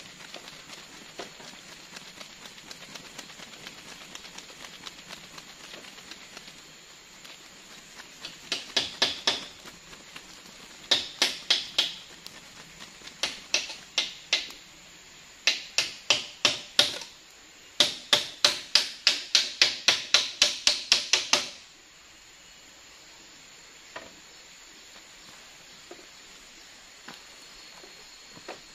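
Hammer driving nails into the wooden roof-truss frame of a tree house: runs of sharp strikes, about three to four a second, in five bursts, the last and longest stopping abruptly.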